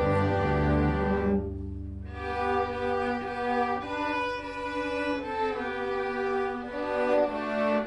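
School string orchestra playing a holiday piece in sustained bowed chords. The low strings drop out about a second and a half in, and a new chord enters half a second later.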